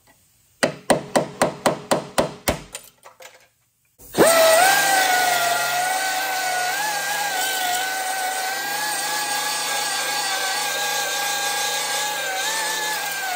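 A hammer taps a thin steel scraper about ten times in quick succession against car-body sheet metal. After a short pause, a belt file sander starts with a brief rising whine and runs steadily, its narrow abrasive belt grinding surface rust off the engine-bay sheet metal, the pitch wavering a little under load.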